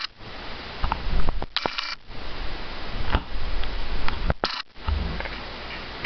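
Handling noise of a video camera being moved and repositioned: steady hiss with low rumble, and two short bursts of clatter, about a second and a half in and about four and a half seconds in.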